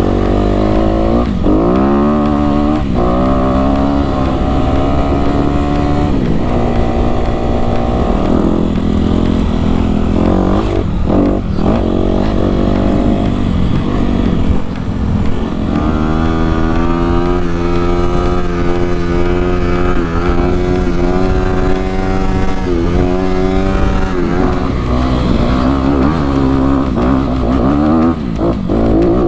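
Dirt bike engine heard from the rider's helmet while riding, its pitch climbing and dropping back again and again as the throttle opens and closes.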